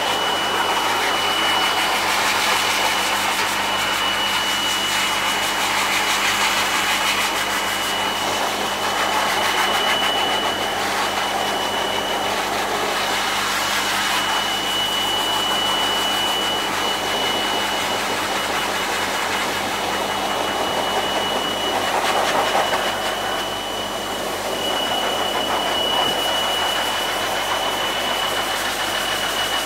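Handheld pet force dryer running: a steady rush of high-velocity air with a constant high motor whine. The air noise swells and eases as the nozzle is moved over the dog's wet coat.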